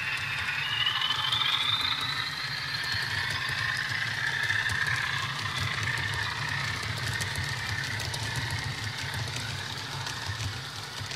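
Sound decoder in a Bachmann model Class 40 playing a recorded English Electric diesel engine under power as the train pulls away, through the model's small speaker. A turbocharger whistle rises in the first few seconds, and the sound grows fainter near the end as the train moves off.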